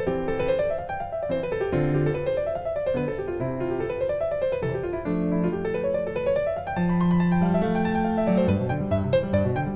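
Background piano music: flowing arpeggios that rise and fall over and over, over held bass notes.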